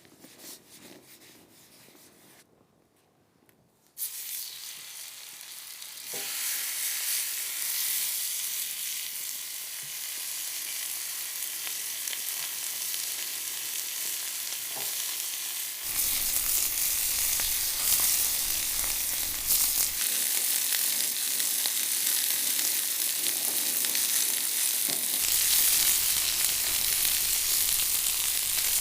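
Sizzling on a hot grill. It starts faintly about four seconds in and gets louder around six seconds, and a low rumble joins it about sixteen seconds in.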